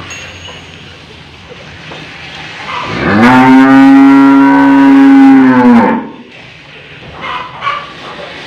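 A cow gives one long, loud moo lasting about three seconds, starting about three seconds in, its pitch rising as it begins and dropping away at the end.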